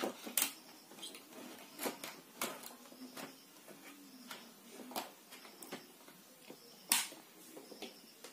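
Scattered light clicks and taps of wires and parts being handled on a workbench, the loudest a sharp click about seven seconds in.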